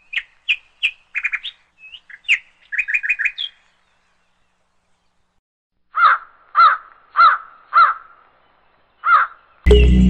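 Birds calling: a quick run of high chirps, then after a pause a series of lower, evenly spaced calls, about one every half second. Music starts loudly near the end.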